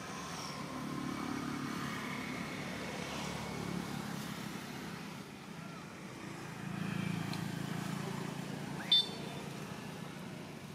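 Low hum of passing motor traffic, swelling twice. About nine seconds in there is one brief, sharp, high-pitched squeak.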